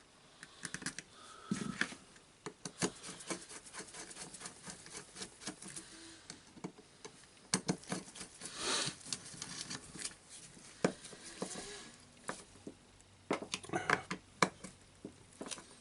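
Replacement screws being driven by hand into the DeWalt DCS331 jigsaw's drive mechanism: irregular small metallic clicks and scrapes of the screwdriver and parts, with a few louder clusters of clicks.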